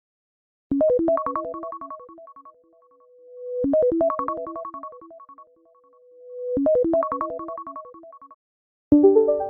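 iPhone iOS 17 ringtone: a short melody of quick keyboard-like notes that repeats three times, about every three seconds, with a held tone between repeats. Near the end a different ringtone with a new melody starts.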